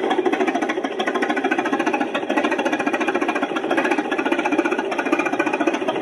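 Dubbed-in sound effect of a bulldozer engine running with a steady, fast clatter.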